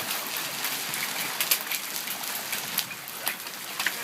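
Rain falling steadily as a storm eases, with scattered sharp ticks of drops striking surfaces.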